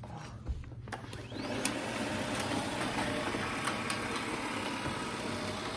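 Shark IQ R1001AE robot vacuum starting up: a few light clicks, then after about a second its suction motor and brushes spin up into a steady mechanical whir.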